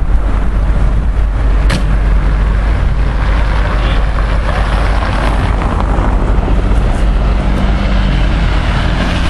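Steady car engine and road noise with a deep, constant low rumble.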